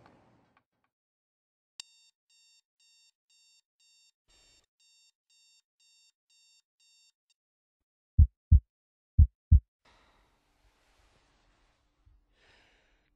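Digital alarm clock beeping faintly, about two high beeps a second, stopping after about five seconds. Then four loud, deep thuds come in two pairs, the loudest sound here.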